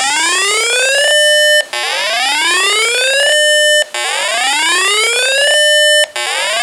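Electronic weather alert tone sounding as a repeating siren-like whoop. Each rising sweep climbs for about a second and a half, holds its top pitch briefly, then cuts off, about three times.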